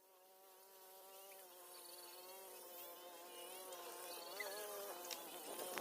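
A flying insect, such as a fly or bee, buzzing close to the microphone. It swells in loudness and its pitch wavers as it moves about, with a short louder burst near the end.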